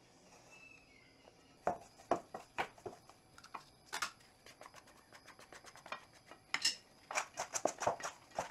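Wooden spatula scraping and knocking against a stainless steel mixing bowl as flour is stirred into a wet bread dough, in irregular short clicks. Near the end the clicks come quicker as a hand works the sticky dough in the bowl.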